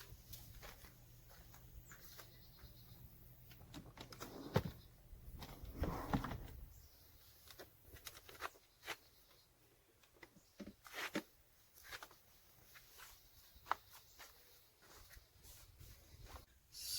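Faint, scattered clicks and knocks of hand work on car interior parts, with a brief rustle about four to six seconds in.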